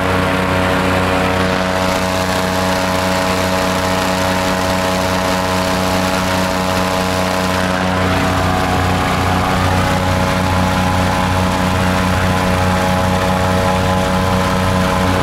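SM-440 airboat's aero engine and air propeller running at steady revs with the boat under way; an even, unchanging pitch.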